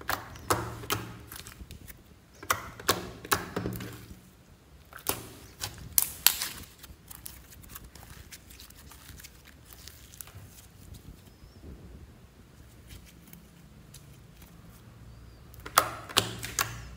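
Glitter slime being pressed and kneaded by fingers, giving clusters of sharp popping clicks as trapped air bursts, four times over, the last near the end, with quieter stretches between.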